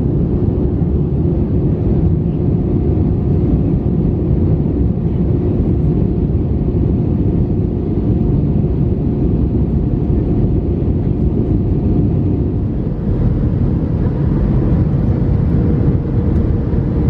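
Steady cabin noise inside an Airbus A320-200 in descent: a deep rush of airflow and engine sound with faint steady tones over it, which shift in pitch about thirteen seconds in.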